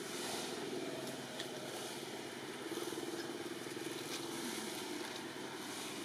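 Steady outdoor background noise, with a few faint clicks.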